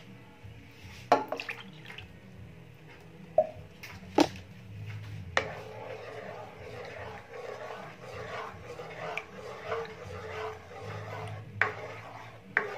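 Ladle stirring coconut milk in a metal pan: several sharp knocks of the ladle against the pan, and from about five seconds in a continuous swishing of the stirred liquid.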